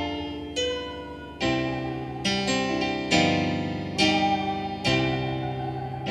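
Electronic keyboard played with a piano sound: full chords struck a little under once a second, each fading before the next.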